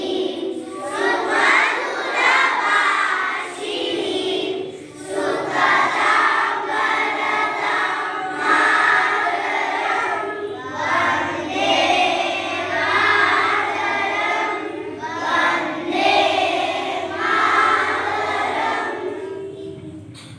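A group of children singing together in chorus, in long phrases of several seconds each with short breaks between them, fading out near the end.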